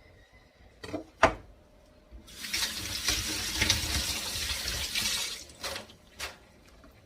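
Kitchen tap turned on and running into the sink for about three seconds, then shut off. A couple of sharp knocks come just before the water, the second the loudest moment, and two lighter clunks follow it.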